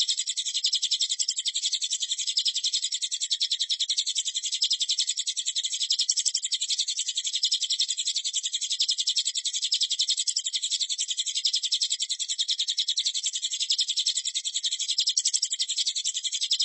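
A continuous high-pitched, rapidly pulsing trill that runs on without a break, played as a tutor song (masteran) for training white-rumped shamas.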